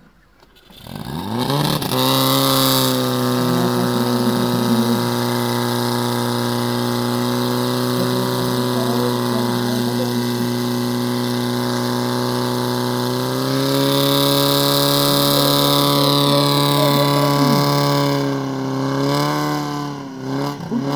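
Portable fire pump's engine revving up about a second in and running at high, steady revs while it pumps water into the hose lines. The pitch steps up a little past the middle, then drops and wavers near the end.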